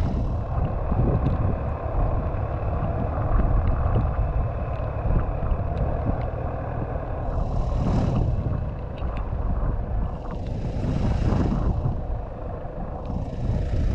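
Engine of a four-wheel-drive snowplowing vehicle running steadily with a low rumble, with three rushes of hiss about seven, ten and thirteen seconds in.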